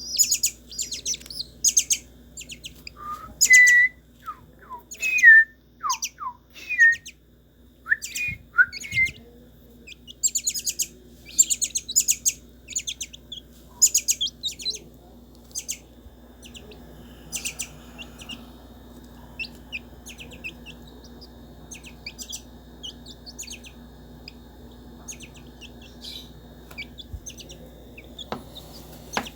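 Birds calling: a busy run of short, high chirps, with several lower, downward-sliding whistled notes between about three and nine seconds in. After about sixteen seconds the calls thin out to fainter, scattered chirps.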